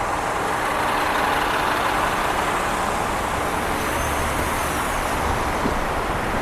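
Steady road-traffic noise from vehicles running, with no distinct single event.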